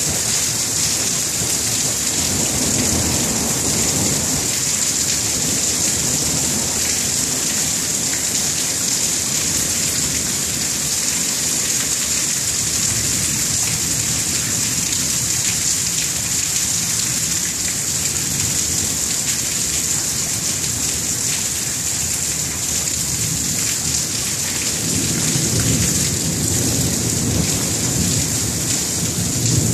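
Steady rain falling through a thunderstorm, with low rumbles of thunder in the first few seconds and again from about 25 seconds in.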